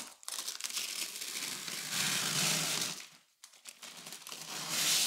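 Protective plastic film being peeled off a new washing machine's panels and crinkling, in two long stretches with a short break after about three seconds, the second swelling louder near the end.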